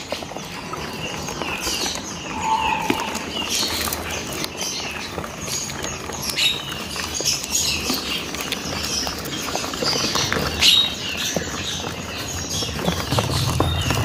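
A crowded crate of hill prinias chirping constantly with many short, quick, high calls, mixed with scattered fluttering and scrabbling clicks.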